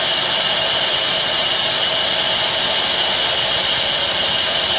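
A power tool running steadily, giving an even, hissing whir that does not change.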